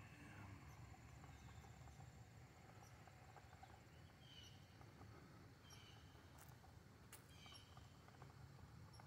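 Quiet outdoor ambience: a faint steady high buzz, and around the middle four short, high chirps from an animal, about a second apart.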